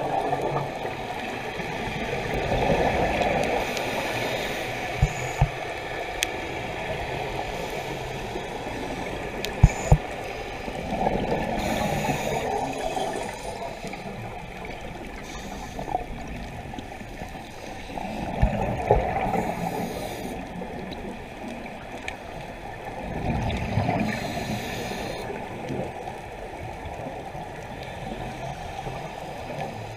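Scuba regulator breathing heard underwater: exhaled bubbles gurgling in swells about every six or seven seconds over a steady water hiss, with a few short knocks in the first third.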